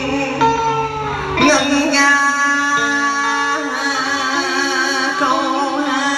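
Music: a slow melody of held, wavering notes over steady accompaniment, part of a song at a Vietnamese birthday celebration.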